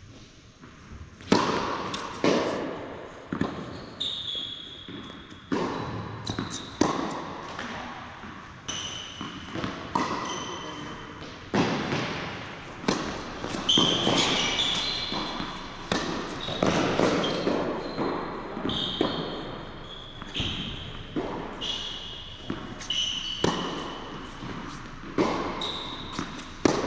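Tennis balls struck by rackets and bouncing on an indoor hard court during a rally, a sharp hit or bounce about every second, each echoing in the large hall. Short high squeaks from sneakers on the court surface come between the hits.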